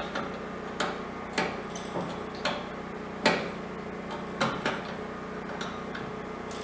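Irregular light knocks and clicks, about eight of them a half-second to a second apart, the sharpest about three seconds in, from hands and tools working parts on a steel ammo-box gasifier. A steady hum runs underneath.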